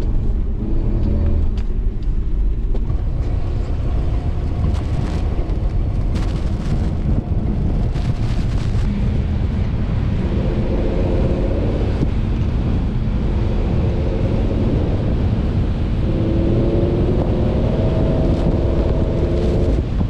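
1994 Ford Explorer's 4.0 L V6 engine pulling hard through deep snow over a heavy, steady rumble. The engine note climbs about halfway through and again near the end.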